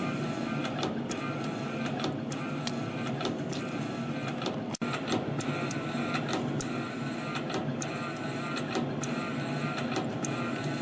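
CNC spring coiling machine feeding and coiling 0.5 mm wire into springs, a steady mechanical whir with a sharp click about once a second, one spring cut off per cycle at 60 pieces a minute. The sound drops out for an instant about five seconds in.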